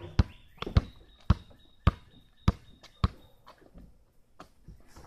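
Basketball dribbled on an asphalt driveway: six sharp, even bounces, a little under two a second, then the bouncing stops.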